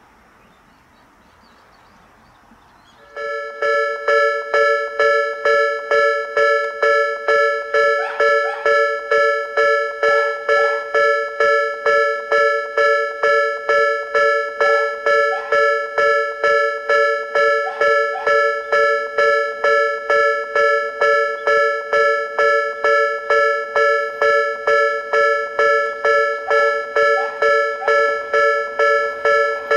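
Japanese railway level-crossing alarm starting up about three seconds in, its electronic two-tone bell ringing evenly about twice a second to warn of an approaching train.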